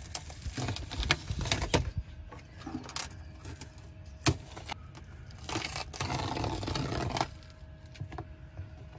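Handling noises: small metal tool clicks and knocks, and scraping and tearing as a sealant-coated black cord is pulled free of its opening. A sharp click comes about four seconds in, followed by a couple of seconds of scraping.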